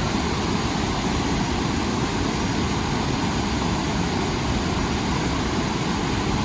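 Waterfall roaring: a loud, steady rush of falling water that holds constant throughout.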